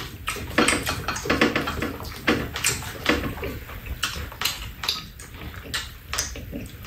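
Close-up mealtime eating sounds: a spoon and chopsticks clicking and scraping against bowls, with chewing and slurping, in many short irregular sounds.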